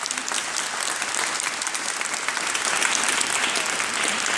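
Crowd applauding: many hands clapping continuously, swelling slightly toward the middle.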